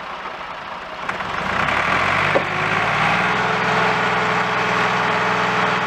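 Massey Ferguson tractor's diesel engine revving up about a second and a half in, then running on steadily at higher revs. Two sharp knocks, one just before the rise and one a second later.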